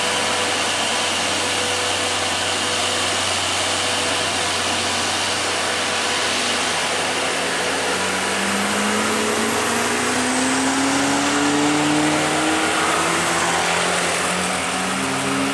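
Heavy truck engine pulling up a steep grade under load, with steady road and engine noise throughout. From about halfway through, the engine note rises slowly in pitch as it gathers revs.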